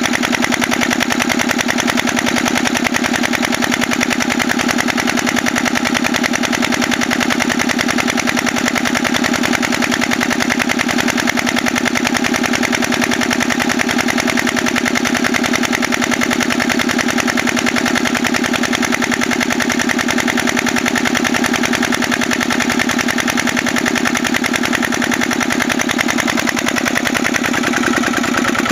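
Petter PH1 single-cylinder air-cooled diesel stationary engine running steadily with an even, rapid firing beat. Its note changes slightly near the end.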